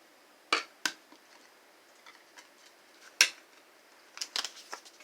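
Hard plastic pieces of a small toy Battleship game clicking and knocking as they are handled: a few sharp clicks, then a quick run of lighter clicks near the end.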